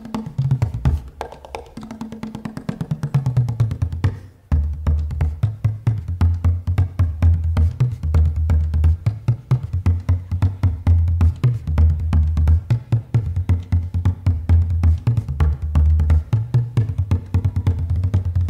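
Bodhrán (Irish frame drum) playing a fast, driving rhythm as background music. It breaks off briefly about four seconds in, then comes back with deeper, louder beats.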